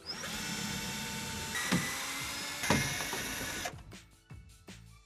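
Cordless drill running in reverse, backing temporary screws out of a shower wall panel's flange: a steady whine that shifts in tone twice and stops after about three and a half seconds.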